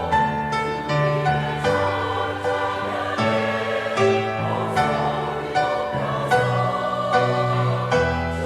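Church choir singing a sacred anthem in parts, holding sustained notes that change every half second or so.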